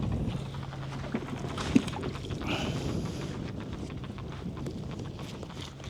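Wind blowing over the microphone on a kayak on choppy water, with a sharp knock about two seconds in.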